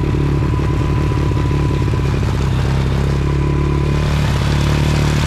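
Honda TRX90 ATV's small single-cylinder four-stroke engine idling steadily just after a cold start, with the choke just pushed off. It picks up slightly near the end.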